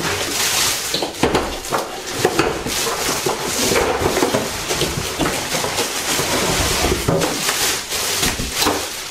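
Clear plastic packaging bag crinkling and rustling in dense, irregular crackles as a wrapped electric grill is handled and lifted out of its cardboard box, with light knocks of packaging.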